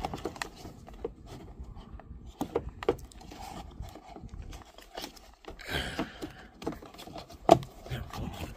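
Scattered clicks and taps of a car's charge port door being handled and fitted by hand. The sharpest click comes about seven and a half seconds in, and a short hiss comes about six seconds in.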